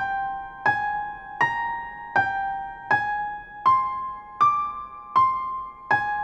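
Background music: a keyboard instrument playing a slow melody of single notes, about one every three-quarters of a second, each ringing out and fading, in a gentle lullaby-like style.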